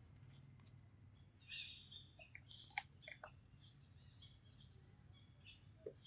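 Near silence: a faint low background hum, with a few soft high chirps about one and a half seconds in and a few faint clicks shortly after.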